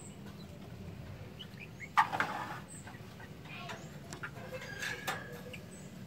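A young bulbul chick calls from its nest. There is one loud, sharp squawk about two seconds in, then a few fainter chirps and a short held note near the end.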